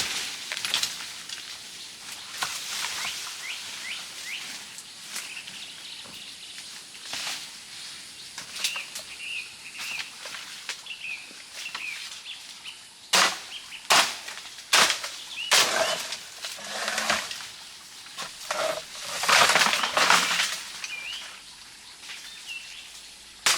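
Small forest birds chirping in short repeated notes, overlaid about halfway through by a string of loud rustling strokes, the longest a couple of seconds before the end.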